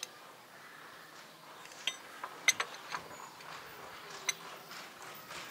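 Light metal clicks and taps of a steel gear-shift fork and hand tools knocking against each other inside an open tractor gearbox housing: a short cluster of clicks around the middle and one more a little later, otherwise quiet.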